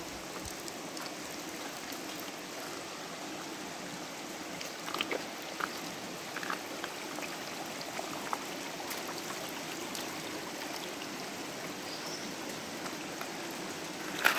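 Shallow river water running steadily over a rocky bed, an even rushing. A few light clicks about five to nine seconds in, like shoes knocking on stone.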